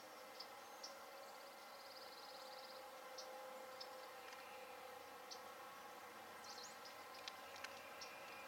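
Faint outdoor ambience: a steady low hum with scattered short, high chirps and ticks, and a brief buzzy trill about two seconds in.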